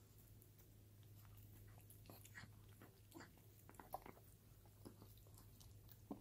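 Chihuahua eating soft food from a stainless steel bowl: faint, irregular chewing and mouth clicks, a little stronger around four seconds in and again near the end, over a steady low hum.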